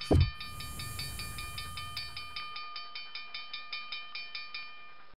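Logo sound effect: a heavy thump, then a railroad crossing bell ringing in quick, even strikes, about six a second, with a hiss over the first couple of seconds. It cuts off suddenly near the end.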